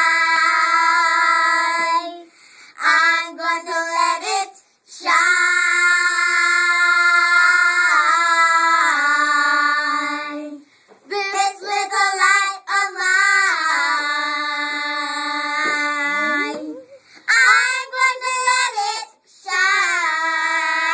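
Children singing together in long held notes, phrase by phrase, with short breaks between phrases.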